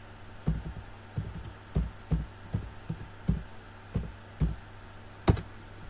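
Typing on a computer keyboard: about a dozen irregular dull keystrokes, the last one about five seconds in the loudest and sharpest, over a steady low hum.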